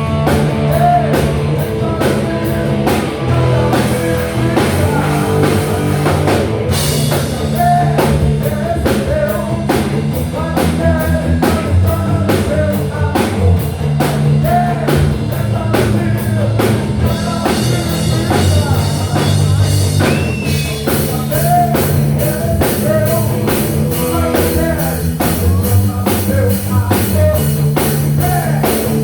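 Rock band playing live, with drum kit, electric guitars and bass in a steady beat. The cymbals grow louder about two-thirds of the way through.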